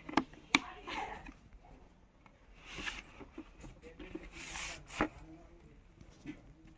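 A Steelbird full-face motorcycle helmet's plastic shell being handled: two sharp clicks near the start and another about five seconds in, with soft rubbing and rustling in between.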